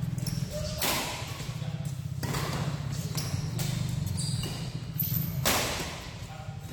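Badminton rally in a large hall: sharp racket strikes on the shuttlecock about a second in, at about two seconds and again near five and a half seconds, each echoing off the hall, with short high squeaks from shoes on the court. A steady low hum runs underneath.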